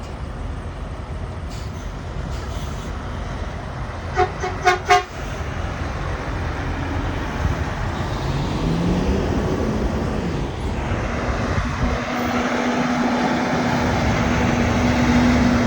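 Semi truck horn sounded three quick short times about four seconds in, over the steady rumble of truck engines. Later a truck engine revs up and back down, then holds a steady drone that grows louder toward the end.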